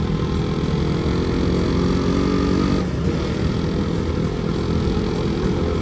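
Motorcycle engine running steadily on the move. Its note sags a little, breaks off briefly about three seconds in, then carries on steady.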